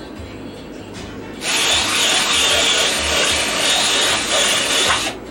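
Power drill boring a hole through a plastic bucket lid for the tubing line: a steady drilling noise that starts about a second and a half in and stops abruptly near the end.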